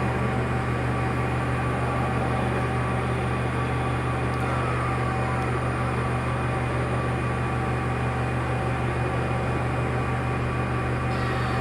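CNC machine running with a steady electrical and mechanical hum, several steady tones over a deep drone. A faint falling whine passes twice, about five seconds in and near the end.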